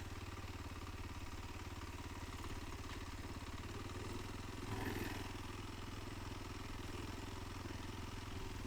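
Kawasaki KLX 230's single-cylinder four-stroke engine idling steadily, with a brief slight swell about five seconds in.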